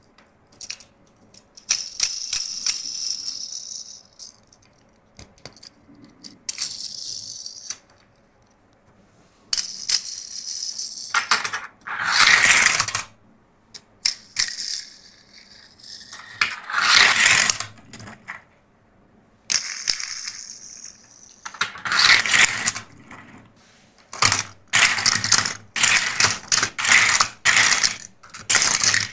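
Plastic toys and packaging being handled, rattling and rustling in irregular bursts with sharp clicks between them.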